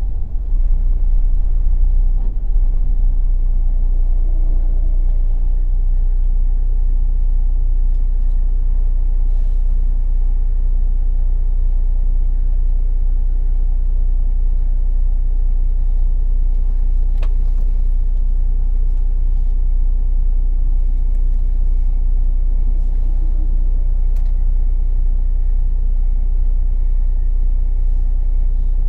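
Temsa Safir Plus coach under way, heard from inside the passenger cabin: a steady, deep rumble of engine and road noise that swells slightly in the first couple of seconds and then holds even.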